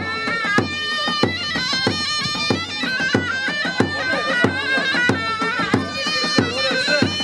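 Zurna, the shrill double-reed folk pipe, playing an ornamented dance melody over a davul bass drum. The drum beats a steady pulse of about one and a half heavy strokes a second, with lighter strokes in between.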